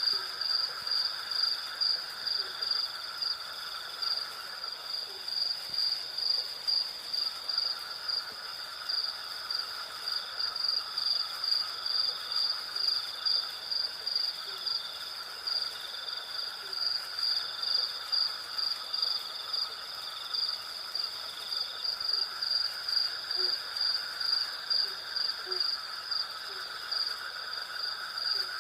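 Night insect chorus: crickets chirping in a steady pulsed rhythm, about two chirps a second, over a continuous buzzing trill from other insects that fades out briefly twice.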